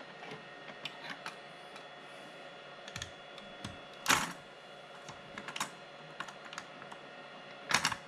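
Small metallic clicks and clatter of a server's LGA1366 CPU socket being opened by hand: the retention lever is unhooked and the load plate swung up. There are two louder clatters, about four seconds in and near the end.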